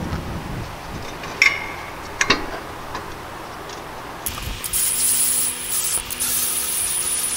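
Metal clinks as a wheel spacer and lug nuts are handled against a brake rotor and hub, twice in the first few seconds. Then, from about four seconds in, a long raspy scraping with short breaks as lug nuts are spun by hand onto the wheel studs to hold the new rotor.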